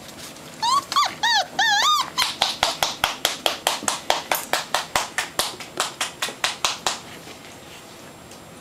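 Puppy whining in a few short rising-and-falling cries, then yipping in a rapid run of short, sharp yips, about five a second, that stops about seven seconds in.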